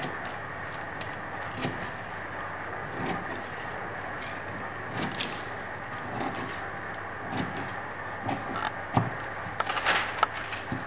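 Scissors cutting along the edge of a sheet, with short snips every second or two. Near the end the sheet rustles as it is lifted and moved. A steady hiss runs underneath.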